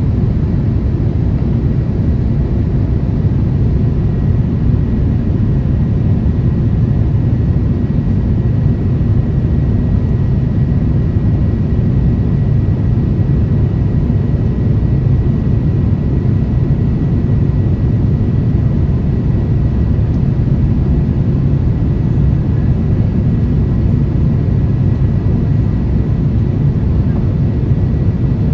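Steady cabin noise of an Airbus A350-1000 under way: an even, low rumble of its Rolls-Royce Trent XWB engines and airflow, with a faint steady whine on top.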